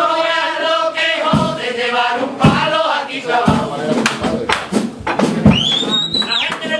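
Chirigota chorus singing together, backed by a bass drum beat about once a second. Near the end a high, shrill whistle rises and holds for about a second.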